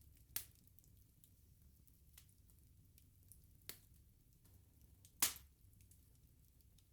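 Wood fire crackling: sparse sharp pops from the burning logs, the loudest about five seconds in, another just after the start and a smaller one midway, over a faint low rumble of the flames.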